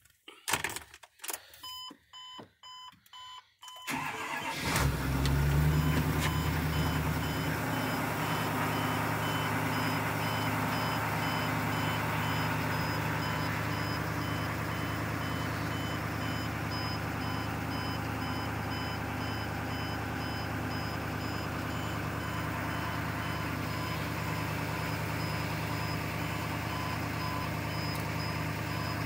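Ford F650 truck's engine being started about four seconds in, rising briefly and then settling to a steady idle, heard from inside the cab. A dash warning chime beeps a few times before the start and keeps repeating faintly over the idle.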